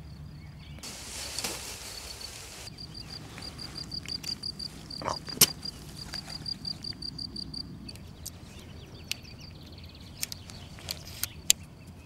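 Metal tent-pole ends and steel rings on webbing straps clicking and clinking as they are fitted together, with a rustle of tent fabric near the start. Behind them, a steady high pulsing chirp of insects.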